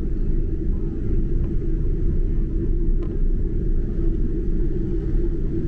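Steady low rumble inside the cabin of a Boeing 747-8 as it taxis on the ground, with a steady hum running through it.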